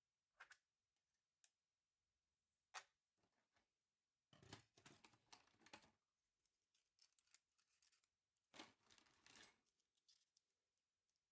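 Faint handling noises from work on a laptop: a few sharp clicks, then two longer stretches of scraping and rustling.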